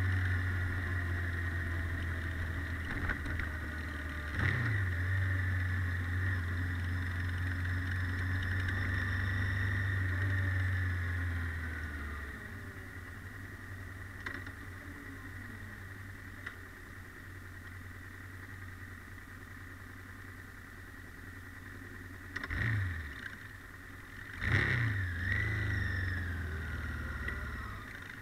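Honda NT700V Deauville motorcycle's V-twin engine running in city traffic: a steady, heavy engine note for about the first twelve seconds, then quieter at low speed, with short blips of the throttle about four seconds in and twice near the end.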